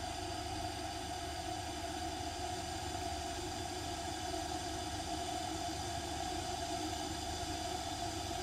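Electric kettle heating water to the boil: a steady low rumble with a hiss over it.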